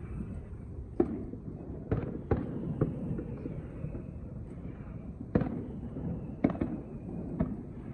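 Aerial firework shells bursting in an irregular string of sharp bangs, with a continuous low rumble between them.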